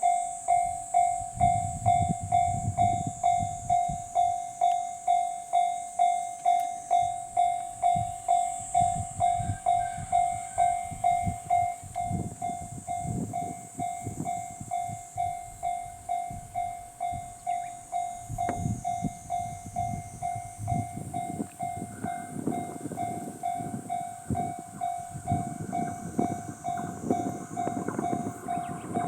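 Japanese level-crossing warning bell ringing just under twice a second, each ding fading before the next. Under it a diesel train rumbles and clatters past over the crossing, heaviest in the second half. A steady high-pitched hiss runs throughout.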